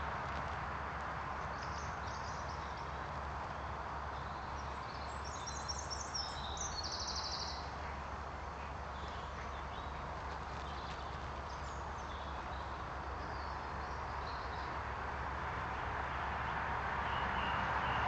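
Steady background hiss with small birds calling faintly now and then, including a quick run of high chirps about five to seven seconds in.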